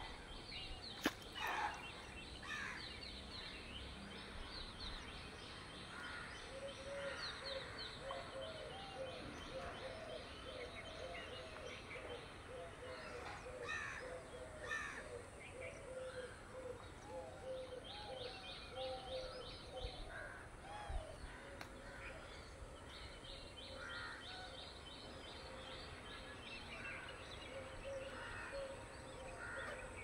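Several birds calling outdoors: runs of fast, evenly repeated high chirps lasting a few seconds each, scattered chirps, and a lower call repeated many times through the middle stretch. A single sharp tick sounds about a second in.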